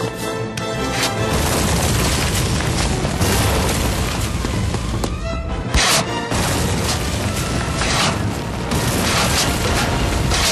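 Building demolition blast: explosive charges going off and a collapse, heard as a long, dense noise from about a second in, under chase music.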